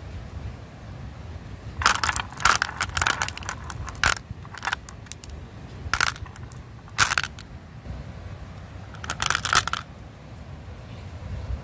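Glass marbles clacking against each other as they are moved by hand into a plastic toy truck's trailer: several short clusters of sharp clicks, the longest about two seconds in and another near the end, over a low steady rumble.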